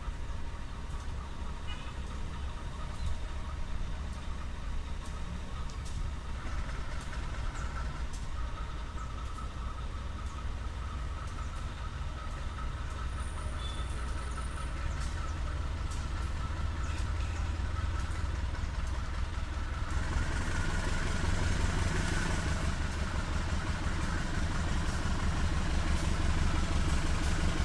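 An approaching train hauled by a diesel locomotive, heard at a distance as a low engine rumble that grows steadily louder. From about two-thirds of the way in it swells into a fuller mix of engine and rail noise as it nears.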